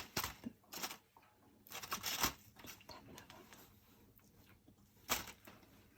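Scattered rustling, crinkling and light clicks from a hot roasted sweet potato being handled and broken open, with the loudest bursts in the first second, around two seconds in and about five seconds in.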